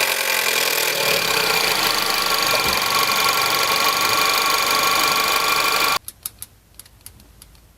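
Car engine running with a rapid mechanical rattle, usually the sign of a slack timing chain from failed hydraulic chain tensioners. It stops abruptly about six seconds in, leaving only faint clicks.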